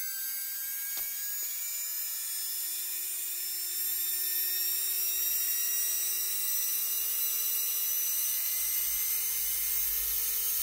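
Marathon micromotor handpiece (Korean electric nail/dental drill) spinning free with no load, its high whine rising slowly in pitch as the speed is turned up, about four seconds in it gets a little louder. It is being run in after new bearings were fitted.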